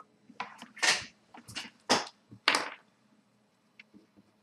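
Several short scuffing and rustling sounds of trading cards being handled and slid about, five in the first three seconds, then quiet apart from a faint tick.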